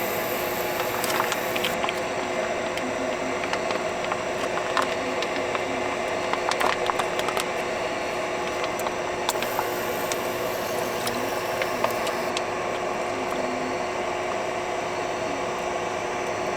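Gopchang-jeongol hot pot simmering on a portable induction cooktop: steady bubbling hiss over a constant hum, with scattered light clicks.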